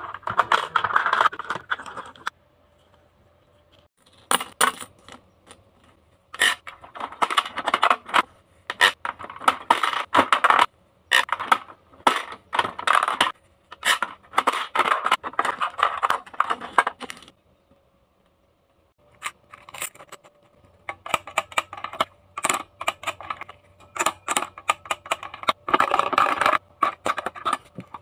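Toy vending machines being played with: plastic toy coins clicking into the slots and small plastic toy drink cans and bottles clattering out into the trays. Bursts of clicks and rattles, with a short pause about two seconds in and another past halfway.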